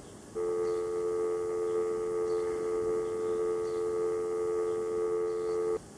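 A steady electronic tone of several held pitches, like a sustained chord, that switches on abruptly about half a second in and cuts off just as abruptly about five seconds later.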